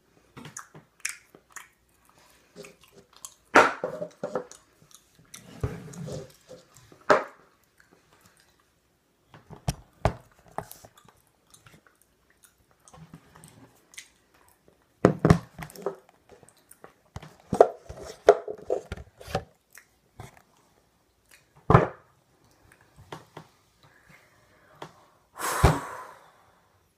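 A person chewing and crunching food close to the microphone: irregular sharp crunches and mouth noises with short pauses between them.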